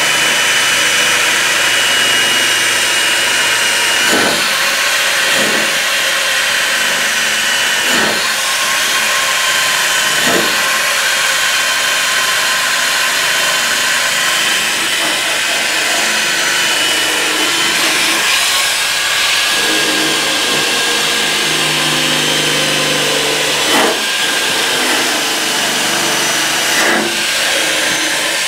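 Corded electric power tool running steadily against the steel truck bed rail, cleaning off rust: a continuous high whine and gritty hiss, with a few brief knocks as the tool is pressed and moved along the rail.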